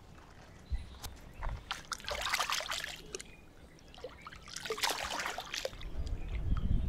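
A whole gutted snapper swished and rinsed in shallow salt water, splashing and dribbling in two spells, about two and five seconds in.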